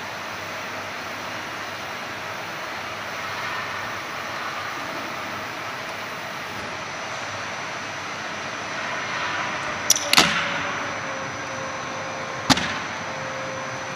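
CNC aluminium profile roll-bending machine running with a steady mechanical noise as the profile feeds through its rollers. Sharp knocks come twice in quick succession about ten seconds in and once more about two and a half seconds later.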